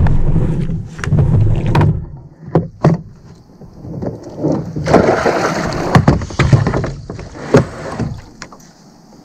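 Knocks and thumps on a plastic fishing kayak as the kneeling angler shifts and works his fly rod, with a low rumble in the first two seconds and a stretch of steady hiss through the middle.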